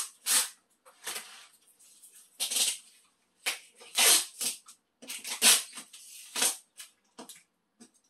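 Packing tape and a cardboard box being handled: a string of short, irregular rustles and scrapes as the tape and box top are worked.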